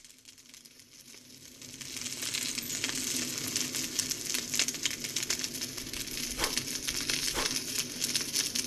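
Fire crackling and sizzling, a dense patter of small crackles that swells from faint to steady over the first two seconds, with a couple of louder pops in the second half.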